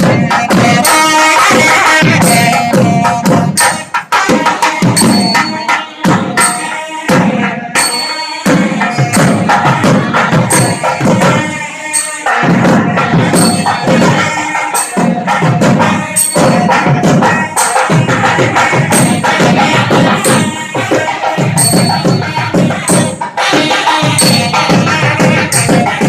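Loud festival music: hand drums beating a steady rhythm, with regular cymbal-like strokes and a sustained, ornamented melody line over them.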